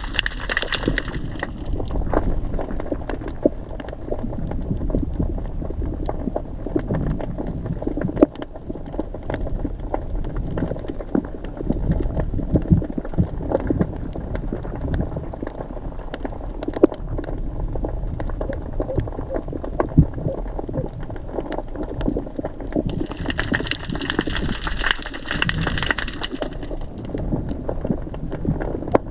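Water noise heard through a submerged camera: a low, muffled rumble of moving water with scattered crackles and clicks. A brighter hiss comes in for about three seconds near the end.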